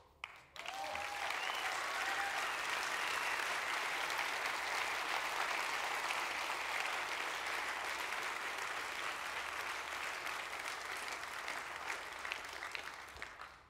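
Audience applauding: the clapping starts suddenly, holds steady for about twelve seconds and fades out near the end.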